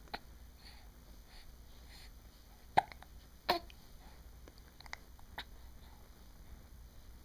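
A pet hiccuping: short, sharp hics, two loud ones close together near the middle, with a few fainter ones before and after.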